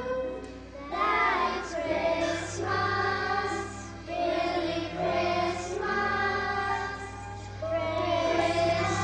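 A children's choir singing a Christmas song together, in phrases, over a steady sustained instrumental accompaniment.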